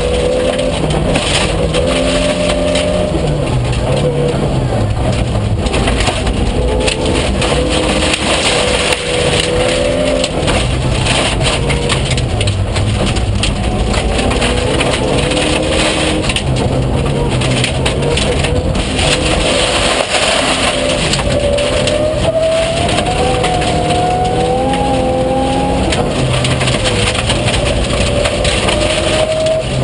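Rally car at full stage pace on gravel, heard from inside the cabin: the engine revs rise and fall as it accelerates and shifts through the gears, over a steady rush of tyre and gravel noise.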